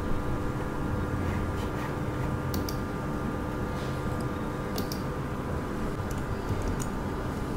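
A steady electrical hum with several constant tones. Over it come a few short, sharp computer clicks as the setup screens are clicked through, the loudest about two and a half seconds and five seconds in.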